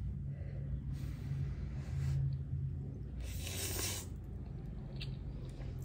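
Ramen noodles being slurped once, a hissing slurp of under a second about three seconds in, with a couple of fainter mouth noises around it, over a low steady background hum.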